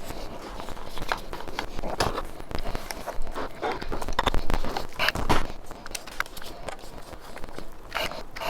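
Screws being driven into a random orbit sander's plastic housing as it is closed up, with irregular clicks, taps and scraping as the tool and screwdriver are handled.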